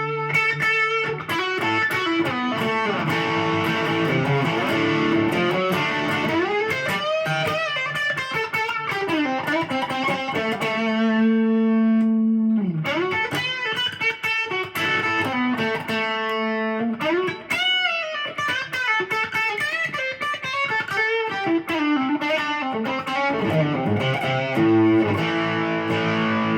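1981 Ibanez Artist AR300 electric guitar played as a lead line through an overdriven tone, with string bends and sustained notes. One long note is held about halfway through.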